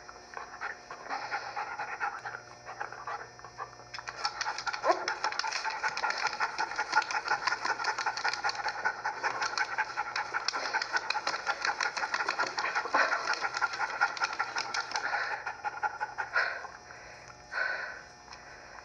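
Rapid, dog-like panting that starts about four seconds in after a few softer breaths and stops a few seconds before the end, followed by two single breaths.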